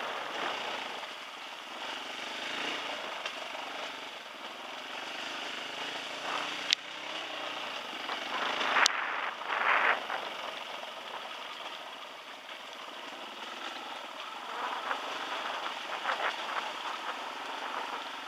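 Dirt bike engine running at riding speed under a steady rush of wind and tyre noise on a wet dirt track, with louder swells now and then. There are two sharp knocks, about 7 and 9 seconds in.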